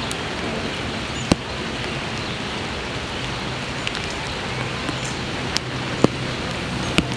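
Steady rain hiss, broken by a few sharp ticks of drops landing close by, with a faint low hum underneath.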